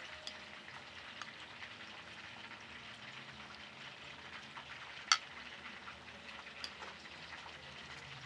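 Oil sizzling and crackling steadily in a frying pan, with a single sharp clink of a metal serving spoon against a glazed clay plate about five seconds in and a few softer taps.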